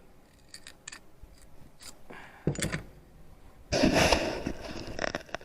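Handling noise from small metal finds just pulled up on a fishing magnet: scattered light clicks, a short scrape about two and a half seconds in, and a longer, louder scrape near four seconds.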